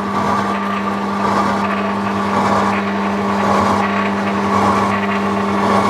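Milling machine taking a heavy cut along the face of a casting with a large milling cutter on slow power feed: a steady machine hum under continuous rough cutting noise.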